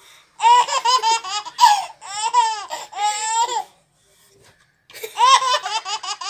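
A baby laughing in quick, high-pitched bursts: two bouts of laughter with a pause of about a second between them.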